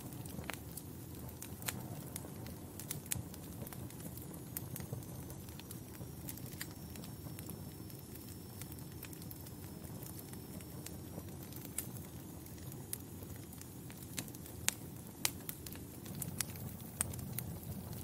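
Wood fire crackling in a fireplace: a steady low rumble of burning flames with frequent sharp pops and snaps, a few louder pops near the end.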